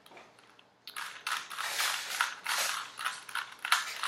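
Rubik's cube being turned quickly by hand, its plastic layers clicking and rattling in rapid runs of turns that begin about a second in.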